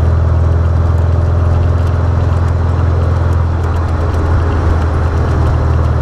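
Birkin Super Seven's engine droning steadily at cruising revs, recorded by an onboard camera in the open car, with road and wind noise over it.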